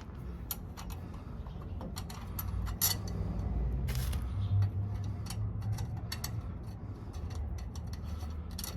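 New nuts and washers being threaded by hand onto leaf spring U-bolts: scattered light metal clicks and scraping over a low background rumble.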